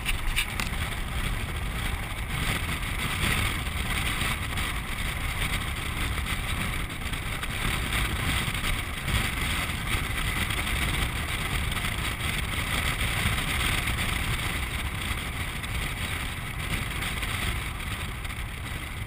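Steady rushing noise of a land sailer moving across a dry lake bed: wind buffeting the camera's microphone over the running sound of the craft.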